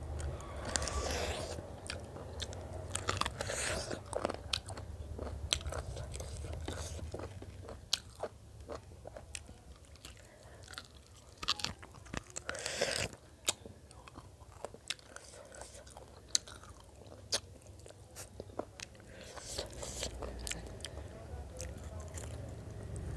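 Close-up eating sounds: chewing and biting food, with scattered sharp crunches and mouth clicks, and a denser run of crunching about halfway through.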